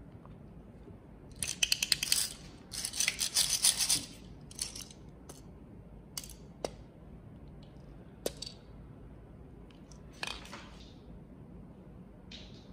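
Two bursts of rapid, crisp clicking about a second each, then a few scattered light clicks and taps, like small handheld tools or objects being handled.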